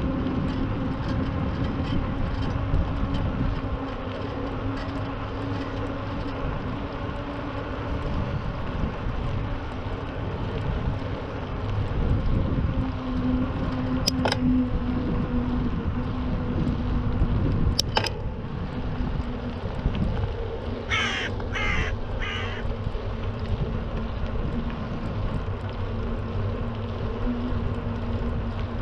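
Steady low rumble with a faint hum. Two sharp clicks come near the middle, and three short, harsh crow caws come in quick succession about three quarters of the way in.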